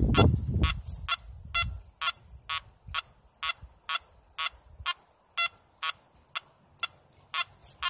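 Makro Multi Kruzer metal detector giving short target beeps, about two a second, as its coil sweeps back and forth over a buried metal target. A low rustle sounds during the first second or so.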